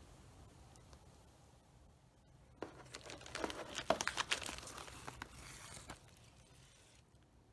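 Plastic packaging crinkling and tearing as it is handled and opened, a dense crackling rustle for about three seconds starting a few seconds in.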